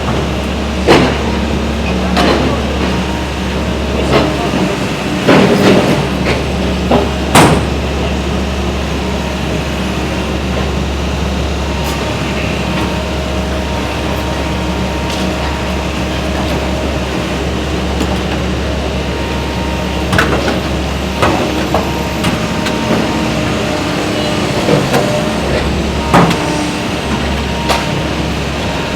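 Demolition-site noise: a steady low mechanical drone with scattered sharp knocks and clanks. The knocks come several in the first eight seconds, then again from about twenty seconds in.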